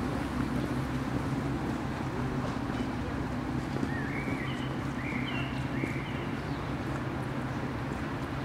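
Steady low machine hum, like an idling engine or a ventilation unit, with a few short bird chirps in the middle.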